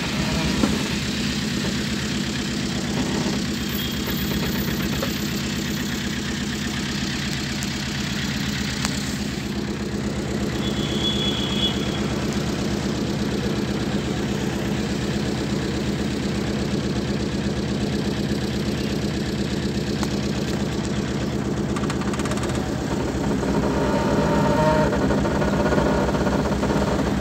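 Vehicle engine running steadily with an even, fast firing beat, a little louder near the end.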